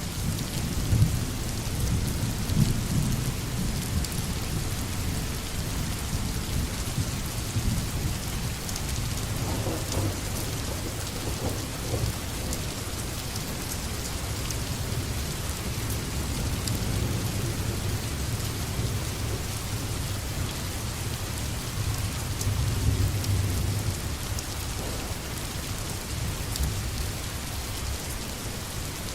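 Food frying in hot oil in a pan: a steady crackling sizzle, with a low rumble underneath.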